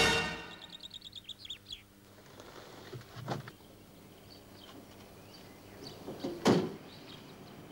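Birds chirping in quick high notes, then a short knock about three seconds in and a car door slamming shut about six and a half seconds in.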